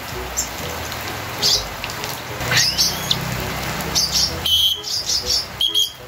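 Pet lovebirds chirping: several short high calls, a sliding call about halfway through, and a held high note near the end, over a steady hiss.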